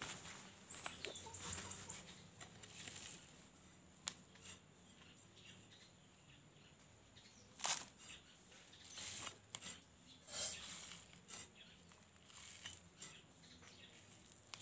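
Rural outdoor ambience: a steady high insect drone, a quick run of short high chirps about a second in, and scattered rustles and knocks.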